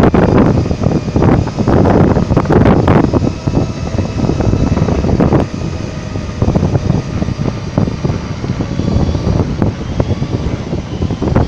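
Strong sea wind buffeting the phone's microphone, a loud low rumble that gusts up and down.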